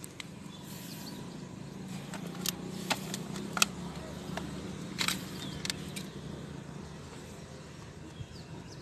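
Petrol draining from a motorcycle's fuel tap into a plastic soft-drink bottle, with a few sharp crinkles and clicks from the plastic bottle in the hand over a low steady hum.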